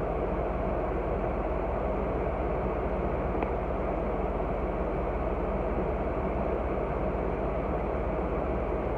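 Steady noise of a car with its engine running: an even low hum and hiss with no distinct events.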